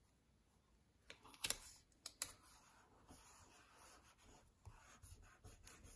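Faint paper handling as a sticker is pressed onto a planner page: a few light clicks and taps between one and two seconds in, then soft rubbing and small ticks as the fingers smooth it down.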